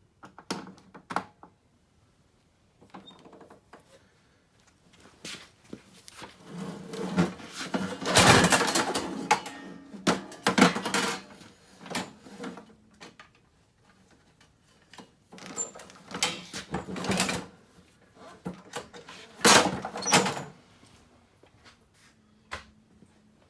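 Knocks, clatter and scraping from hands and tools working on a small snowblower engine, in several bursts with the loudest a few seconds in and again near the end.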